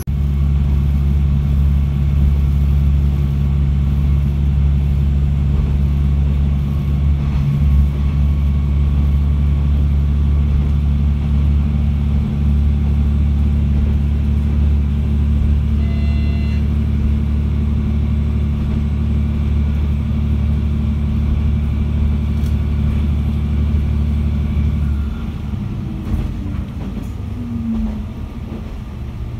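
Diesel railcar's engine running under power, heard inside the passenger cabin as a steady low drone, with a brief high tone about halfway through. Near the end the throttle is eased off and the drone falls away to quieter running over the rails.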